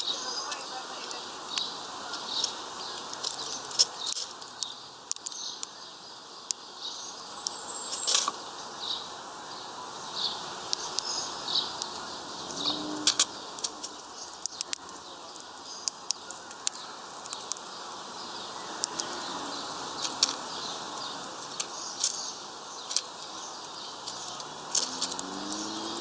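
Irregular sharp clicks of a female chaffinch pecking at and cracking sunflower seeds on a wooden feeder tray, with faint short chirps of other birds in the background.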